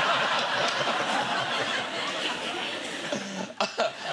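Studio audience laughing together, a dense steady wash of laughter that eases off slightly near the end.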